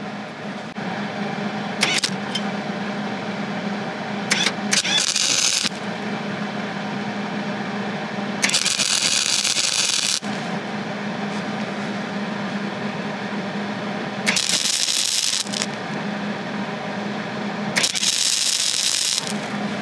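Hobart 140 MIG welder's arc crackling and sizzling in short bursts of one to two seconds as bead after bead is laid on steel, over a steady electrical hum.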